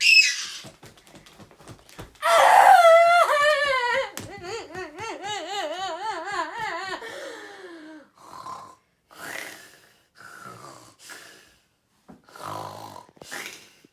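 A person screaming: a short loud shriek at the start, then a long wavering scream whose pitch wobbles rapidly up and down for about five seconds, followed by several short gasping breaths.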